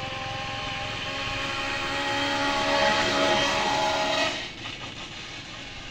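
A steady engine drone with a fixed pitch, growing louder over the first few seconds and then dropping away abruptly about four seconds in.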